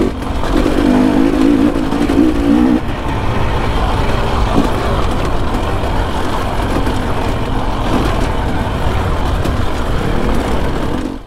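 Off-road dirt bike engine running while riding, its note climbing to a loud, held pitch for about two seconds near the start, then running on unevenly.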